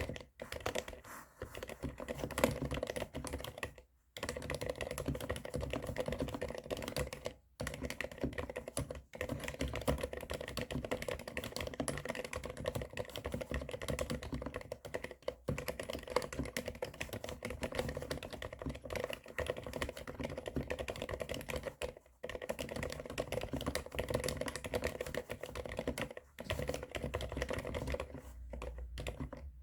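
Steady, fast typing on a mechanical keyboard with Cherry MX Silent Black linear switches, dampened keystrokes with a scratchy, Topre-like sound. Typing pauses briefly about 4, 7.5 and 22 seconds in.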